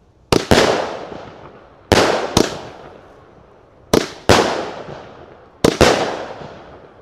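A 20mm consumer firework cake firing four shots about every second and a half to two seconds. Each shot is a pair of sharp bangs a fraction of a second apart, the launch and then the shell bursting, each trailing off briefly.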